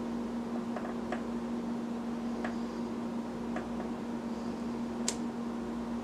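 A steady low hum and hiss, with a few light taps and clicks as a wooden-handled rubber stamp is pressed onto a sketchbook page; the sharpest click comes about five seconds in.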